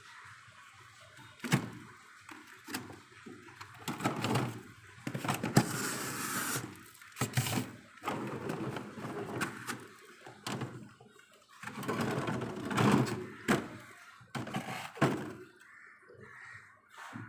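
Plastic storage boxes and freezer drawers being handled: repeated knocks and thunks with rustling and clatter in between.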